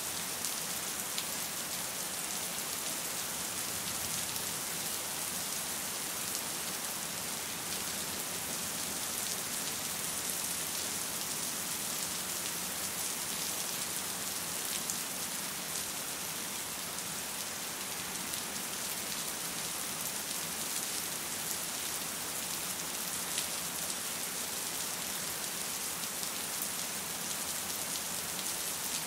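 Steady rain: an even hiss, brightest in the high range, with a few sharper drop ticks now and then.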